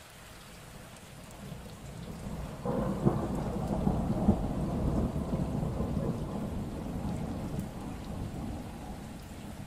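Steady rain with a long roll of thunder. The thunder builds from about a second and a half in, swells sharply near the three-second mark, then rumbles on and slowly dies away toward the end.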